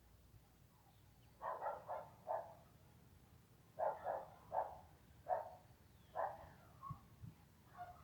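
A dog barking in short bursts, several barks in a row: a first run of three or four about a second and a half in, another run around four seconds, single barks after, fading near the end.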